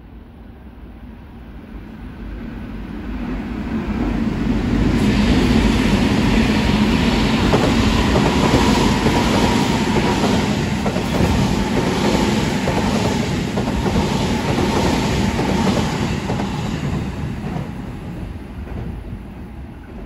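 Tobu 9050 series electric train passing close by, its wheels clacking in a regular run over the rail joints, with a thin steady whine. The sound builds over the first few seconds, holds loud through the middle and fades away near the end.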